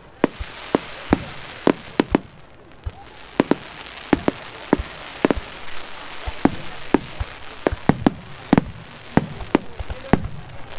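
Fireworks display: aerial shells bursting overhead in quick, irregular succession, about two sharp bangs a second, with deeper booms rolling in during the last few seconds.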